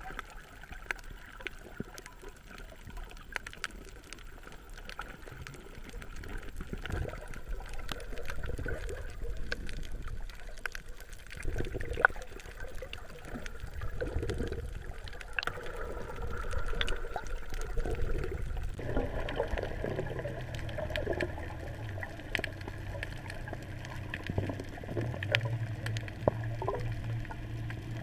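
Water sounds picked up by an action camera held in the water while snorkeling: muffled sloshing and bubbling with many scattered small clicks. About two-thirds through the sound changes and a low steady hum comes in.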